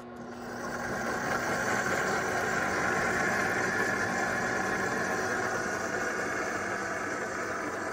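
ChefWave Milkmade nut milk maker's blade motor running, blending sunflower seeds and water into milk: a steady whirring churn that builds up over the first second and then holds.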